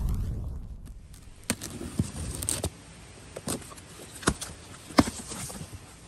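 The tail of a deep boom dies away over the first second. Then a cardboard box is handled and its flaps opened, giving sharp taps and scrapes every second or so.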